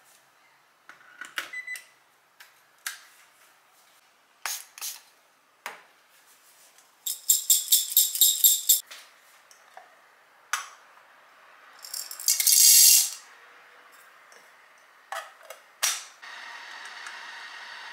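Coffee-making handling at a kitchen counter: clicks and knocks of metal equipment and a stainless cup being set down, with two rattling runs of coffee beans poured into a burr grinder's glass hopper. About a second and a half before the end, a small motor, the coffee grinder, starts running steadily.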